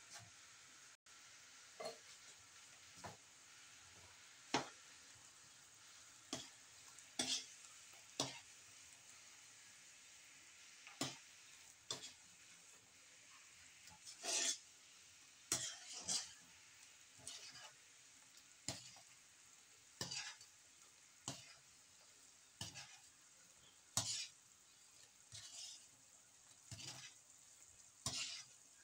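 A metal spatula scraping and knocking against a metal wok in irregular strokes about every second or two, over the steady faint bubbling sizzle of a simmering coconut milk and brown sugar syrup.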